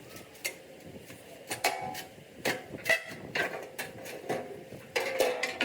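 Irregular metal-on-metal clinks and taps, each ringing briefly, from hand work on a metal part.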